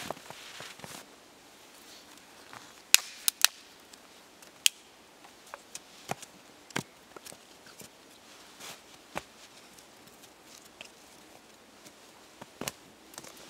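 Dry sticks and bark clacking and cracking as they are handled and laid out on snow, with a quick run of three sharp cracks about three seconds in and single ones spread through the rest, after a brief rustle at the start.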